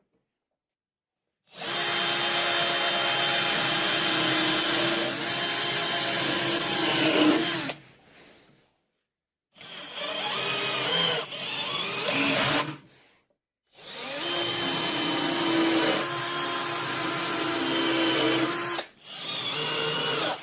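Electric power tool, likely a drill, running under load in bursts: one long run of about six seconds, a pause, two shorter runs, another long run, and a short burst near the end.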